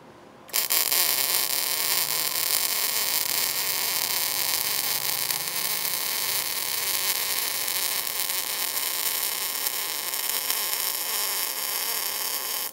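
Gas-shielded MIG welding arc on thin steel tubing, striking about half a second in and then running as a steady, even hiss with the wire feeding continuously; a smooth, stable arc.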